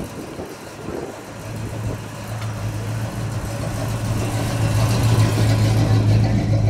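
A Chevrolet Chevelle convertible's engine runs at a low, steady cruising speed as the car drives slowly past. It grows louder about four to five seconds in, as the car comes closest.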